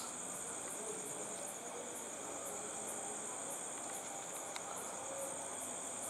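Crickets chirring steadily, a faint, unbroken high-pitched trill.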